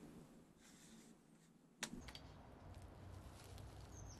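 Near silence, broken by one sharp click a little under two seconds in as the aluminium outrigger arm is handled, then a few fainter ticks over a faint low rumble.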